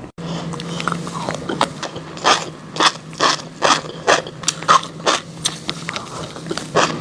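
Fish roe being bitten and chewed: a string of sharp, crisp pops at an uneven pace, roughly two a second, over a low steady hum.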